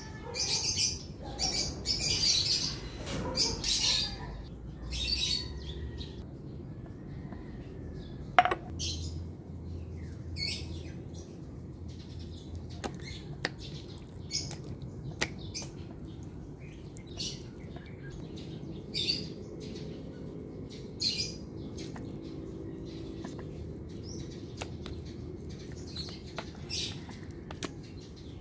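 Hands rubbing spice into raw chicken breasts on a plastic tray: short, wet, sticky handling sounds at irregular intervals, busiest in the first few seconds, with one sharp click about eight seconds in.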